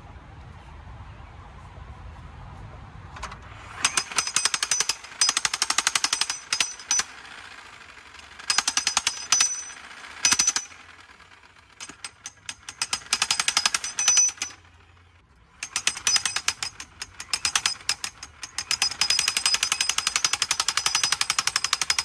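Electric jackhammer pounding the steel drive cap of a 1¼-inch sandpoint well pipe to drive it into the ground. The rapid metal-on-metal blows start about four seconds in and come in several bursts with short pauses, the longest run near the end, and they carry a ringing tone.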